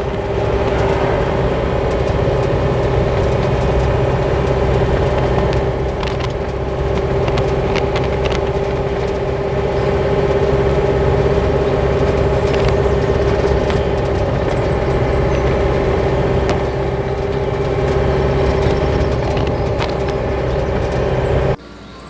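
Steady engine and road noise heard inside the cabin of a moving vehicle, with a constant drone; it cuts off abruptly just before the end.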